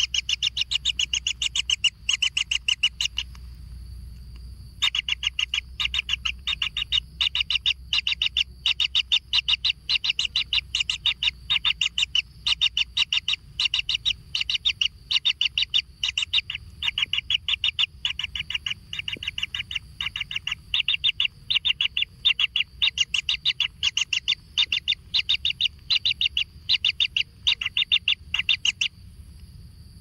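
Kingfisher nestlings calling in a fast, even run of short begging calls, about three a second. The calls pause briefly about three seconds in, then carry on until they stop shortly before the end.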